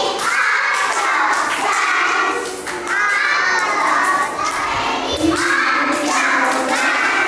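Young children singing together in high voices, in a run of short phrases.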